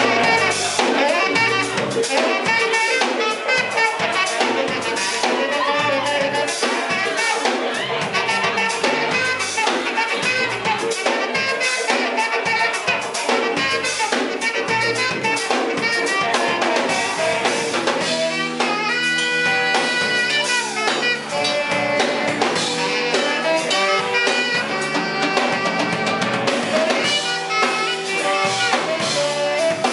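Live blues band playing: drum kit and electric guitar carry a steady groove, with a melody line of held notes over it.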